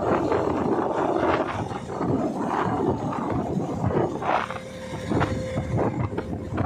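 Wind buffeting the microphone and water rushing and slapping past a motorboat crossing choppy open water, with a faint steady engine hum underneath.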